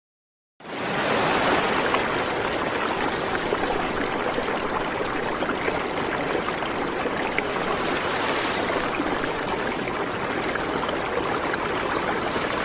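Steady rushing noise with no distinct tone or rhythm, cutting in about half a second in after a moment of silence.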